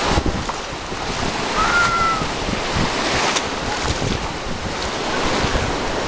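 Small waves washing onto a sandy shore, with wind gusting on the microphone. Faint voices of a crowded beach, and a brief high tone about two seconds in.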